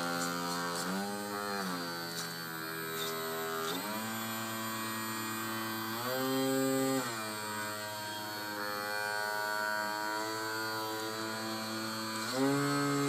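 Electric sewing machine motor running with a humming whine, its speed stepping up and down several times: brief rises about a second in, a higher burst around six seconds and again near the end, settling back to a lower steady hum in between.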